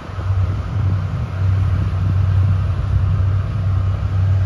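Boat engine running with a steady low rumble.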